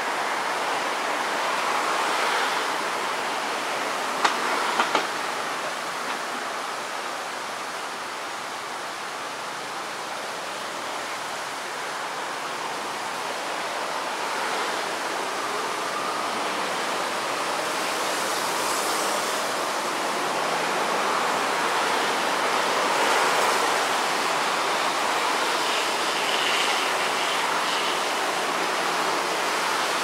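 A steady rushing noise that swells and fades gently over many seconds, with a few sharp clicks about four to five seconds in.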